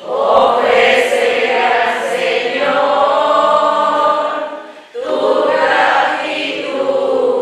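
Church congregation singing together in Spanish: many voices in sustained sung phrases, with a short breath about five seconds in before the next phrase.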